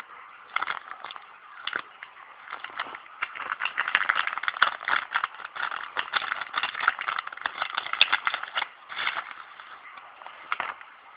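Packaging being handled: irregular crinkling, rattling and small clicks, busiest in the middle stretch and thinning out near the end.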